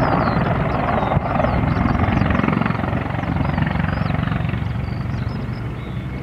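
Mil Mi-24 attack helicopter flying a display pass: loud, fast rotor chop over turbine noise, easing off gradually toward the end.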